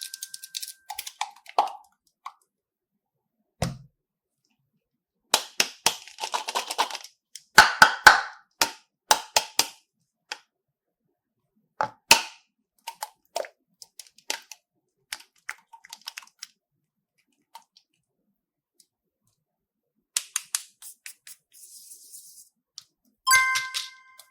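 Slime being handled, with a scatter of sharp pops and clicks. They come most densely from about five to ten seconds in and die away toward a quiet stretch. A short ringing clink comes near the end.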